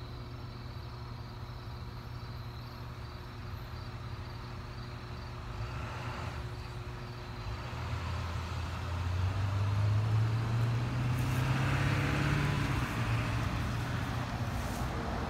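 An engine running with a steady low hum, which grows louder from about eight seconds in.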